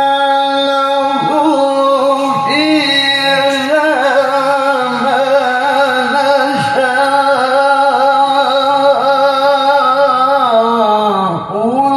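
Male Qur'an reciter's voice in a long melismatic tilawah phrase: one unbroken, sustained line ornamented with wavering turns, stepping up in pitch about two and a half seconds in and dipping briefly near the end.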